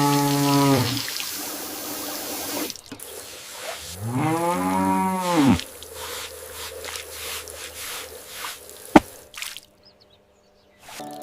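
Cow mooing twice: a short, level call right at the start, then a longer moo about four seconds in that rises and falls in pitch. A single sharp click follows near the end.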